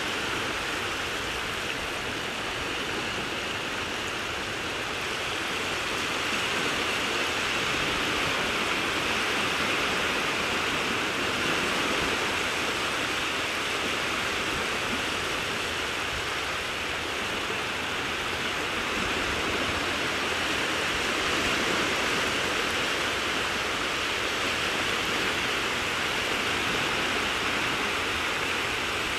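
Shallow seawater washing and rippling over sand at the sea's edge, a steady watery rush with no breaks.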